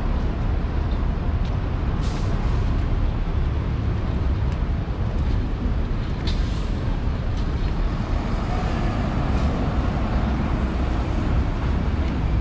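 New York City subway train running along the track: a loud, steady rumble with a few short sharp clicks.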